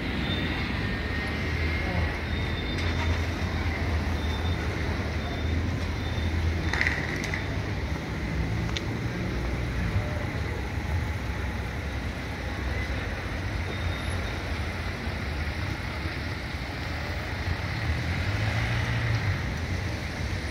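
City street traffic noise: a steady hum of car engines and tyres, with a low rumble throughout.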